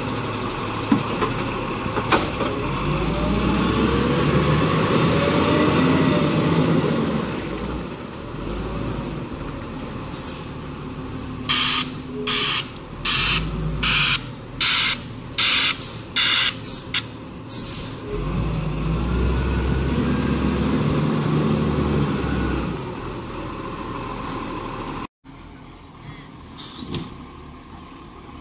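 A garbage truck's engine revs up and back down, then a reversing alarm beeps steadily for several seconds, a bit under two beeps a second. The engine then revs up and down again. Near the end the sound drops suddenly to a quieter engine.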